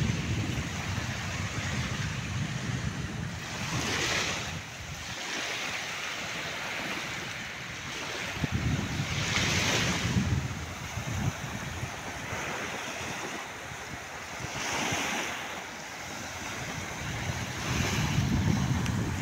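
Small sea waves breaking and washing up on a sandy shore, a hissing wash about every five seconds, with wind rumbling on the microphone.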